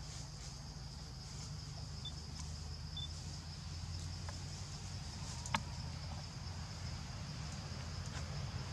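Outdoor ambience: a steady high insect drone over a low steady rumble, with a few faint clicks and one sharp click about five and a half seconds in.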